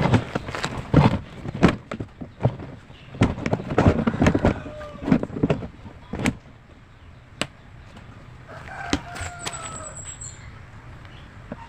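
Sharp knocks and clicks of washing machine parts being handled and fitted back together. Near the end, a rooster crows once in the background.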